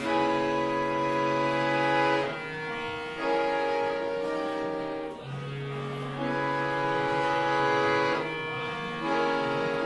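Live tango ensemble playing, with violin and accordion in front over bass, holding sustained chords that change every second or two.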